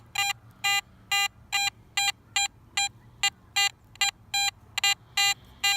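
Teknetics Patriot metal detector giving a repeatable mid-tone signal over a buried target: short beeps of the same pitch, about two or three a second, one with each sweep of the coil across the target.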